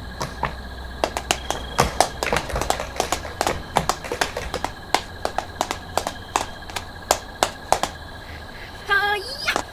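A rapid, irregular run of sharp clicks and snaps, several a second, with a short wavering pitched sound near the end.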